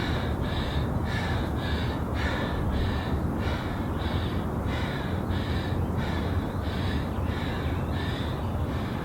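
A person breathing hard and rhythmically, about two harsh breaths a second, out of breath near the end of a twelve-minute high-intensity bodyweight workout, over a steady low rumble.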